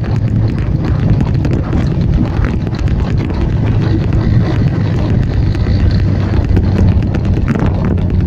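Vespa scooter engines running steadily on the move, with wind buffeting the microphone in an irregular crackle.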